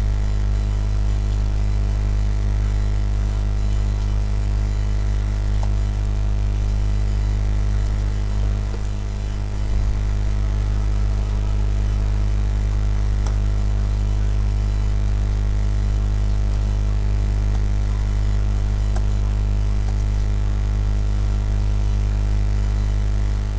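Steady low electrical hum with a buzzy ring of overtones, constant in level: mains hum picked up by the recording.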